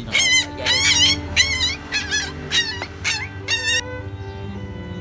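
Young puppies crying in short, wavering, high-pitched yelps about twice a second, distressed at being tied with wire and handled; the cries stop about four seconds in.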